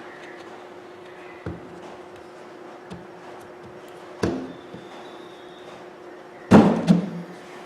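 Hard knocks and taps as the field assembly is worked back into the housing of a Bosch 11255VSR rotary hammer: two light taps, a louder knock about four seconds in, and the loudest knock, with a short rattle after it, near the end. A steady low hum lies underneath.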